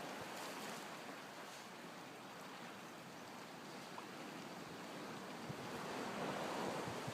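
Steady rushing of sea surf and wind, swelling slightly near the end, with no explosion.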